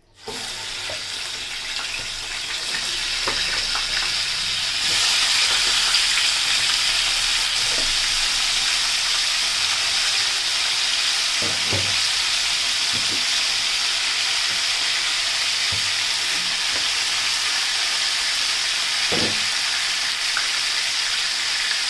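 Raw chicken pieces hitting hot oil in a pan, setting off a loud frying sizzle that starts suddenly and then keeps going steadily. A few short knocks of a spoon stirring in the pan stand out.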